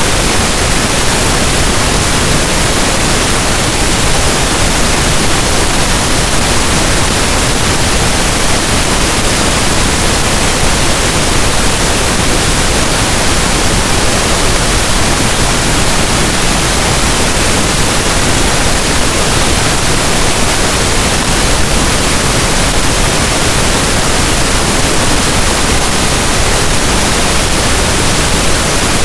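Steady synthetic pink noise: an even, unchanging hiss.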